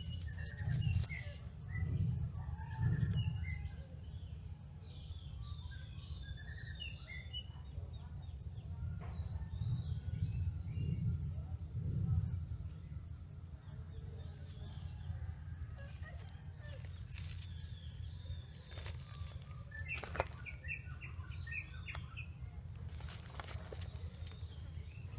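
Small birds chirping in short scattered calls, over a steady low rumble that swells a few times, loudest in the first few seconds and again around the middle.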